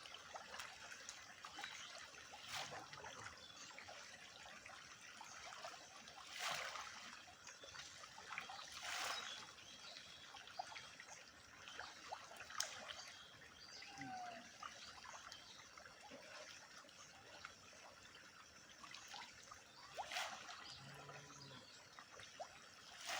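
Water trickling steadily, with a few short louder bursts of splashing water.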